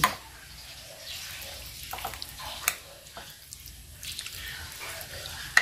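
Metal spoon pushing raw chicken pieces into a bowl of wet batter: soft wet squelching and sloshing, with a few sharp clinks of the spoon against the dishes, the loudest near the end.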